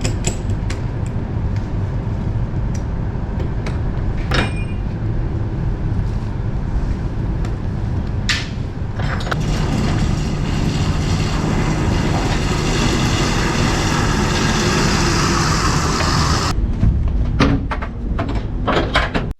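Heavy lorry running with a steady low engine rumble and scattered clicks and knocks. A rushing hiss joins about halfway through and stops abruptly near the end.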